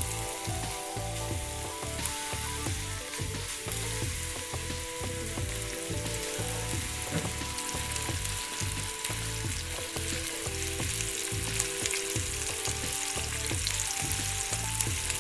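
Raw minced meat frying in hot oil in a pan: a steady sizzle with many small crackles.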